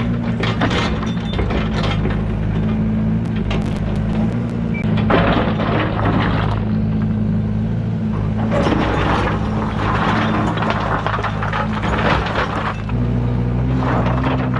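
Yanmar ViO80 excavator's diesel engine running steadily, with stretches of clattering, rattling noise over it about five seconds in and again from about eight to twelve seconds. The engine note grows louder near the end.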